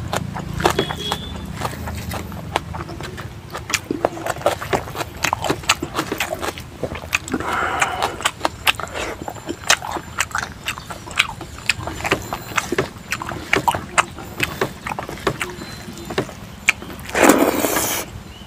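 Close-up eating sounds of someone eating rice by hand: irregular wet chewing and lip smacks, many quick clicks in a row. A brief loud hiss-like burst comes near the end.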